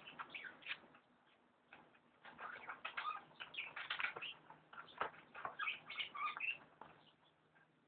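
Scrabbling and scratching at a tube stuck in a desk: quick irregular clicks and scrapes, busiest from about two seconds in and dying down near the end.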